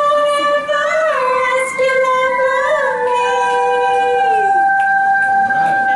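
Two voices singing long held notes, the closing notes of a song. The lower voice slides down and stops about four and a half seconds in, while the higher one holds a single steady note to the end.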